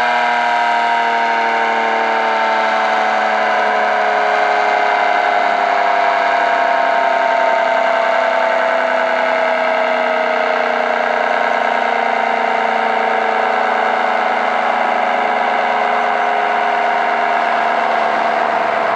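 ACA Screamer dual-tone, 9/12-port electromechanical warning siren sounding its steady Alert signal. It is a continuous two-note tone at an even loudness, with its pitch sinking slowly.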